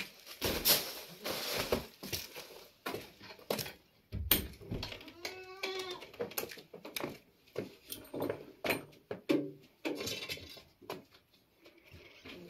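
A goat kid bleating, one arched call about five and a half seconds in, over scattered knocks and scuffs of someone moving about.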